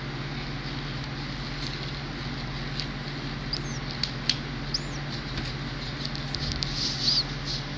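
Newly hatched nestling bird giving a few short, high peeps, with tiny clicking sounds around them, over a steady low hum; the peeps come while it is being hand-fed worm, the clicks and peeps thickest near the end.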